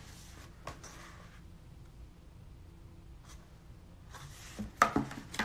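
Paper picture book being handled: a faint rustle of pages and small clicks as it is opened and lifted, then a short cluster of knocks and rustles about five seconds in as it is lowered back onto the table.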